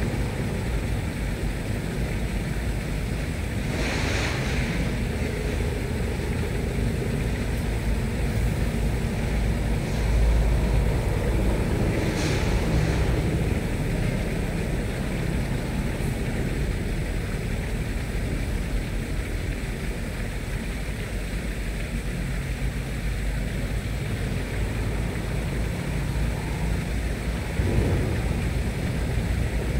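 A small boat's engine running with a steady low rumble, wind buffeting the microphone, and two brief rushing sounds about four and twelve seconds in.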